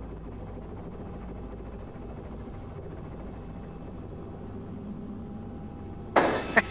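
Robinson R66 turbine helicopter heard from inside the cabin: a steady low drone with a faint whine, as it makes its approach to land. Just before the end a sudden louder burst with a couple of sharp clicks cuts in.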